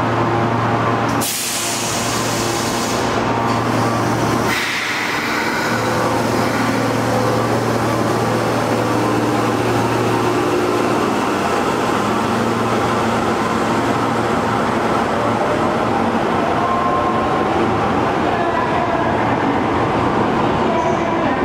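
Osaka Metro Midosuji Line subway train pulling out of an underground station: two sharp hisses of air from the train about a second and about four and a half seconds in, then the steady run of its motors and wheels with gliding motor tones as it gathers speed and leaves.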